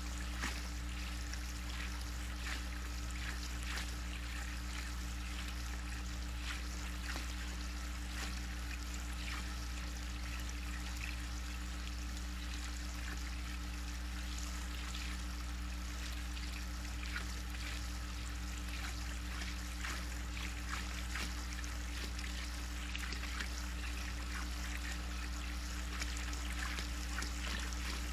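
Water in a backyard spa trickling and lapping, with light splashes as raccoons wade and drink, over a steady low hum.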